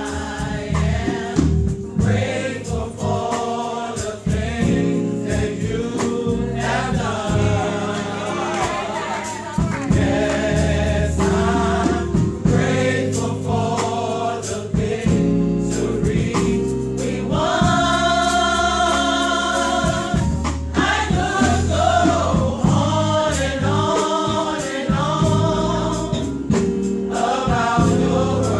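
Gospel choir singing in harmony over instrumental accompaniment with steady bass notes and a beat, swelling into a long held chord about eighteen seconds in.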